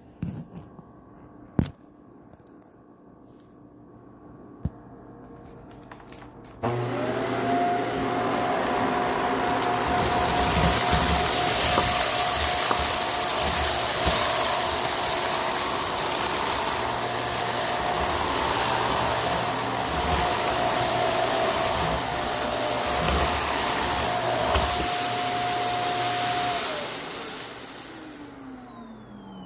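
Shark Apex upright vacuum cleaner switched on about a quarter of the way in, its motor coming up to a steady whine as it runs and sucks up rock salt. Near the end it is switched off and the motor winds down in a falling whine.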